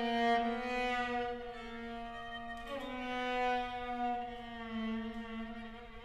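String quartet of two violins, viola and cello playing long sustained bowed notes. About halfway through the notes slide briefly up in pitch. The sound grows softer toward the end.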